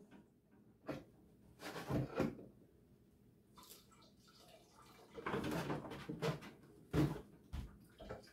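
Water being scooped from a plastic bucket and poured into plastic gallon jugs at a sink, in a few short splashy spells with pauses between. Light plastic knocks and clicks near the end.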